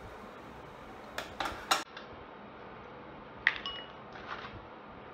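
Metal tongs and utensils clinking against a metal baking tray of seafood. A few quick clicks come about a second and a half in, then a sharper clink with a short ring about three and a half seconds in.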